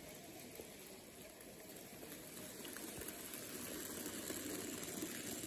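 N scale model freight train running along the track, its small motor and wheels making a steady noise that grows louder as the train comes close and passes.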